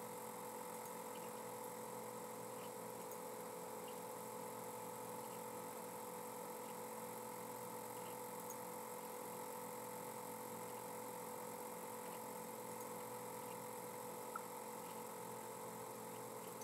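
Faint steady electrical hum with two unchanging tones over a background hiss, with a single faint click near the end.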